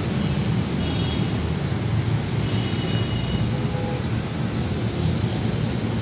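Steady low rumbling background noise with no distinct events, with a few faint high tones near the middle.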